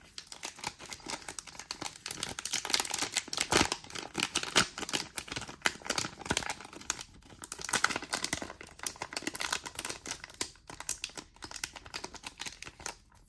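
Crinkling and tearing of a trading card pack's wrapper as it is opened and handled, a dense run of crackles and rustles.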